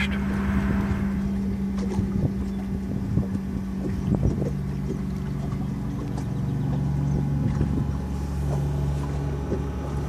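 Thermoelectric (Peltier) cooler's 12-volt fan running with a steady low hum, its pitch shifting lower about four seconds in, with a few light knocks.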